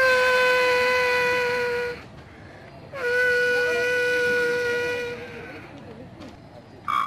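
A boy's mouth imitation of a train horn: two long, steady blasts about a second apart, each dipping slightly in pitch as it starts, the second fading away at its end.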